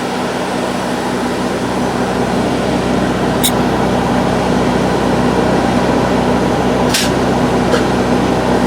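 Polyjacking rig pumping air through the injection line after the foam trigger is released: a steady rushing hiss over a low machine hum, growing slightly louder. Sharp clicks come about three and a half and seven seconds in.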